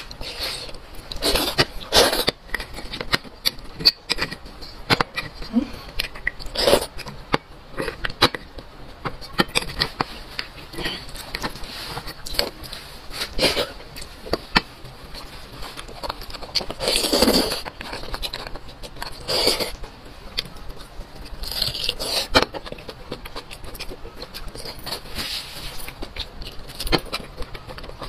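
Close-up eating sounds: a metal spoon scraping and clicking against beef bones as the marrow is dug out, with chewing in between. The clicks and scrapes come at irregular intervals.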